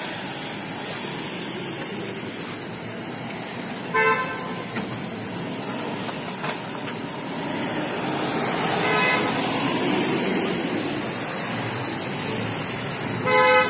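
Street traffic with vehicles driving past and car horns honking three times: a short toot about four seconds in, another around nine seconds, and the loudest near the end.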